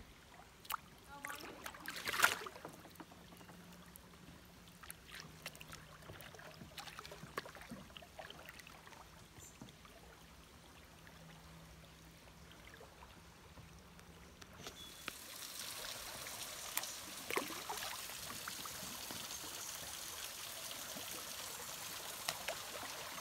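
Kayak paddle dripping and splashing, with light knocks, the loudest about two seconds in. About halfway through, a steady rush of flowing creek water comes up and continues.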